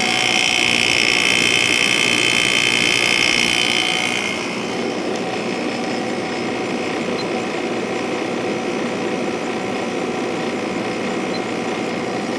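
Sharp window air conditioner running on low fan with its compressor on, shortly after start-up: a steady hum and fan rush. A loud high hiss lies over it for about the first four seconds, then falls away.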